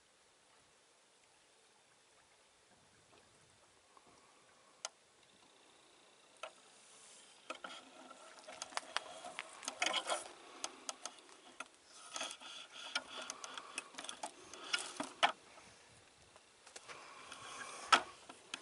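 Footsteps and brush rustling through dry leaves and twigs: irregular clusters of crackling and snapping, starting about seven seconds in after near quiet, with one sharp snap near the end.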